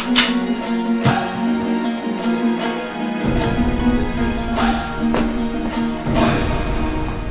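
Background score music with a steady held tone and repeated struck notes. A sharp hit just after the start is the loudest sound.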